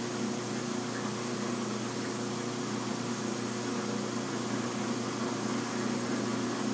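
1952 American Kitchens impeller dishwasher running, a steady motor hum under the even rush of water coming into the tub.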